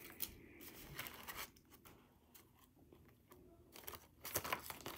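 Faint scattered clicks and rustles of Pokémon trading cards being handled, with a few sharper clicks near the end.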